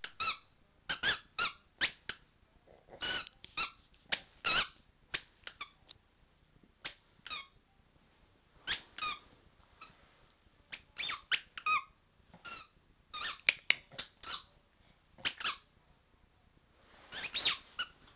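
Boston terrier chewing a squeaky toy ball, making short, high squeaks again and again in quick irregular clusters with brief pauses between.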